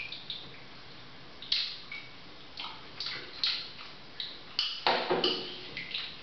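A metal spoon clinking and scraping against a glass bowl in short, irregular ticks, some with a brief glassy ring, and a louder clatter about five seconds in.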